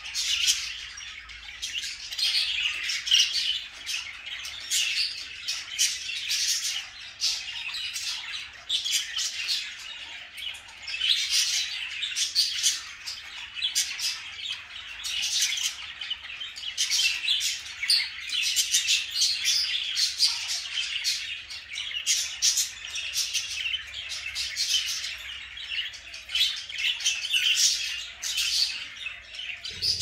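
A flock of budgerigars chattering continuously, many birds calling at once in quick short chirps and squawks.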